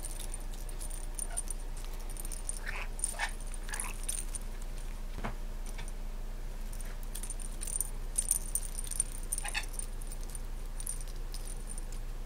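A pet lory playing: light jingling and rattling comes and goes, with a few short squeaky calls from the bird around three seconds in and again near ten seconds.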